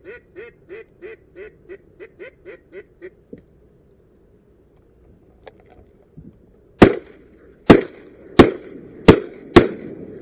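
A quick, evenly spaced run of about a dozen duck quacks that fades out after about three seconds. Then five shotgun shots in rapid succession, starting about seven seconds in, about one every 0.7 s, fired at a duck flying over the decoys.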